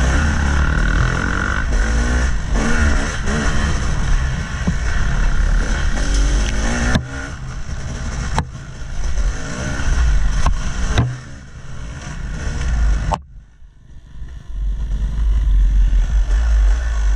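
Yamaha YZ250 two-stroke dirt bike engine revving up and down as it is ridden, with a few sharp knocks and clatter. About thirteen seconds in the engine note drops away suddenly, leaving a low rumble.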